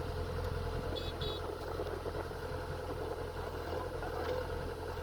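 Rice harvester's engine running steadily, a constant low drone with a held mid-pitched hum. Two short high chirps sound about a second in.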